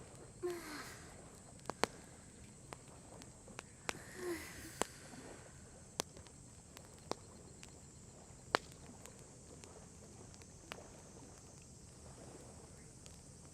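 Wood campfire crackling, with sharp pops at irregular intervals. Two short bird calls sound about half a second in and again about four seconds in.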